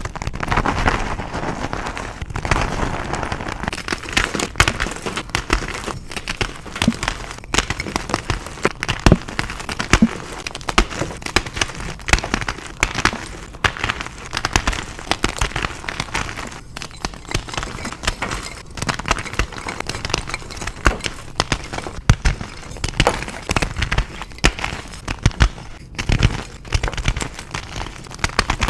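Reformed gym chalk being crushed and crumbled, a dense run of crisp crunches and crackles without pause.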